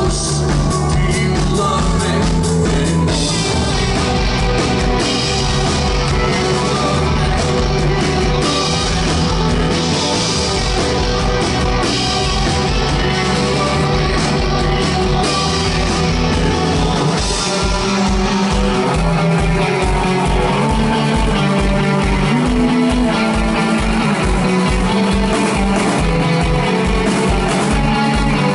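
A rock band playing loud live: electric guitars, bass and drum kit, heard from the crowd. About two-thirds of the way through, the low end changes to a fast, even pulsing rhythm.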